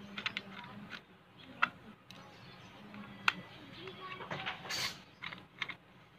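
Small screwdriver prying at the casing of a vape box mod: scattered light clicks and knocks of metal tip on plastic, with a brief scraping rasp about five seconds in.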